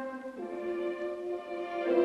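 Background music of slow, sustained chords, moving to a new chord about half a second in.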